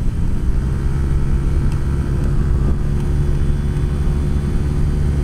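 Honda Click 125i scooter's single-cylinder engine running steadily at high speed, a drone that rises slightly about half a second in and then holds. Heavy wind buffets the microphone over it.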